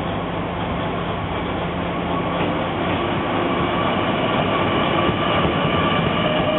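Shimabara Railway KiHa 20 series diesel railcar, its DMH17 diesel engine running steadily with a low hum. About two and a half seconds in, higher steady whining tones join, and the sound grows gradually louder.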